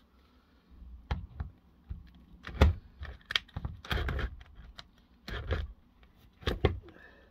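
Scattered clicks, clinks and knocks of metal tool handling, the loudest about two and a half seconds in: an 8 mm socket bit being fitted to a cordless drill and set onto a bolt head on the compressor motor's cast frame.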